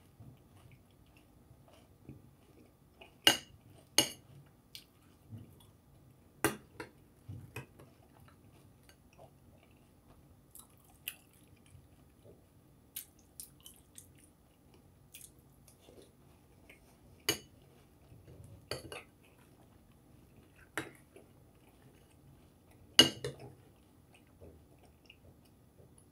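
A spoon clinks against a cereal bowl several times, in sharp, irregular taps with the loudest near the end. Between the taps there is quiet chewing of a mouthful of cereal.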